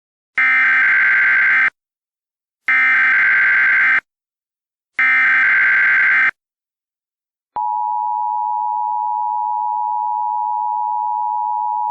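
Emergency Alert System tones: three identical bursts of SAME digital header data, each just over a second long with about a second between them, then the steady two-tone EAS attention signal, which starts about seven and a half seconds in and holds.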